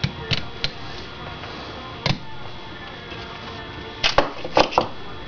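Small metal carburetor parts and hand tools clicking and clacking on a workbench as the carburetor is handled and a screwdriver picked up: three quick clicks at the start, one about two seconds in, and a cluster of three sharper knocks around four seconds in.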